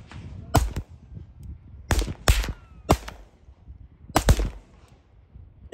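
Five handgun shots at uneven intervals, two of them close together about two seconds in.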